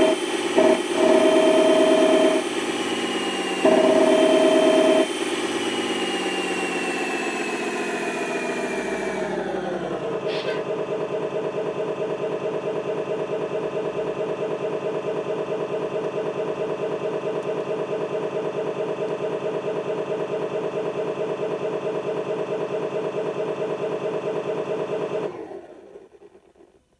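Recorded Tatra 813 air-cooled V12 diesel engine sound played through a small RC-truck loudspeaker: high revs for the first few seconds with a loud steady tone blaring in and out over them, then the revs fall away about ten seconds in to a steady, even idle. The engine shuts off near the end.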